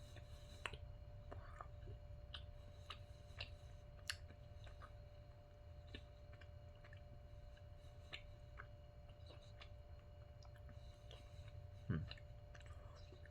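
A person chewing a mouthful of Snickers pecan bar: faint, irregular mouth clicks and smacks, with one short low throat sound near the end.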